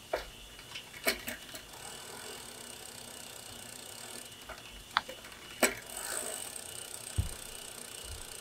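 Bicycle crankset, pedal and chain being handled in a repair stand: a handful of sharp separate metal clicks, and a dull thump about seven seconds in.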